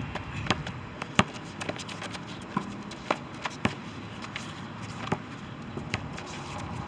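A basketball being dribbled on an outdoor concrete court, with irregular sharp bounces, along with players' footsteps.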